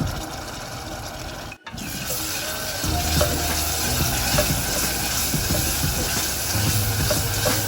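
Water running or liquid pouring in a kitchen, as an even rushing noise with a brief break about a second and a half in.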